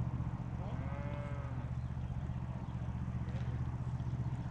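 A cow mooing once, a single call that rises and falls, lasting about a second. A steady low drone runs under it.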